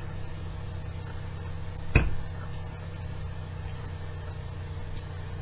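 Steady low hum with one sharp knock about two seconds in, like a small metal part or tool knocked against the bench.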